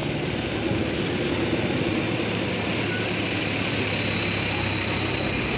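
Chicken pakora deep-frying in a large kadai of hot oil, the oil bubbling and sizzling steadily, with a steady low hum underneath.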